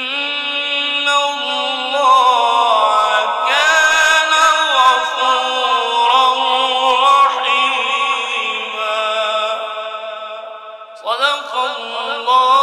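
Quran recitation: a male reciter's voice holding a long melodic phrase that slides and wavers between notes. The phrase fades about ten seconds in, and a new one starts a second later with a rising swoop.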